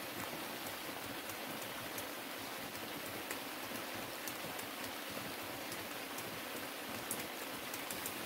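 Steady rain falling, with many sharp little ticks of single drops striking close by.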